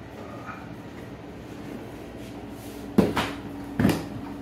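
Plastic storage boxes knocking onto a tile floor: a quiet stretch, then two sharp clacks, about three seconds in and again a second later.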